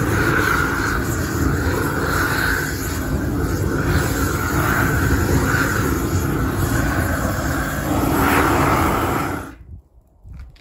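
GrillBlazer Grill Gun propane torch burning at full flow, a loud steady rush of the gas jet and flame. It shuts off suddenly near the end.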